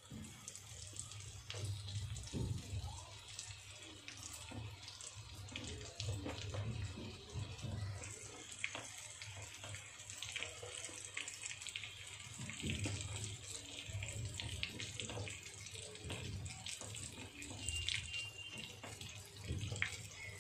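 Rice-flour-coated chicken lollipops shallow-frying in a little hot oil in a steel kadai: a steady sizzle with scattered small crackles and pops. A fresh piece goes into the oil at the start and again near the end.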